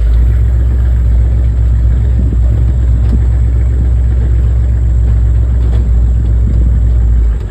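Pickup truck on the move, heard as a loud, steady low rumble that starts abruptly and drops off near the end.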